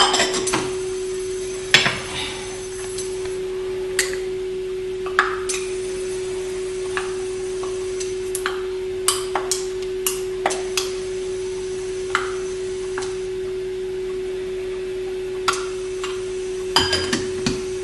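Metal tablespoon clinking against a stainless steel pan and small glasses as sauce ingredients are spooned in: about fifteen light, scattered clinks, several close together in the middle and a cluster near the end. A steady pitched hum sounds underneath throughout.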